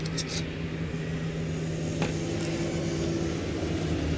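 Steady low mechanical hum, like a motor or traffic running in the background. Light metallic clicks from a drill bit being drawn out of a metal drill-bit case come just after the start, and one more about two seconds in.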